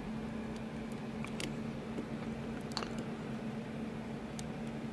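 Faint, scattered metallic clicks and scrapes of a hook pick lifting pins inside a Sargent XC lock cylinder under a tension wrench, over a steady low hum. The clearest click comes a little under three seconds in.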